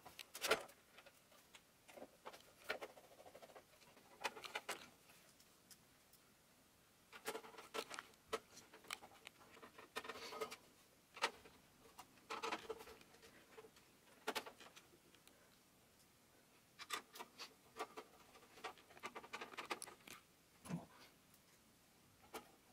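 Faint, scattered small clicks, ticks and short scrapes of a screwdriver driving screws through a motherboard into the case's standoffs, with metal parts being handled.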